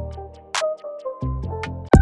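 Electronic background music with synth bass notes and a light ticking beat.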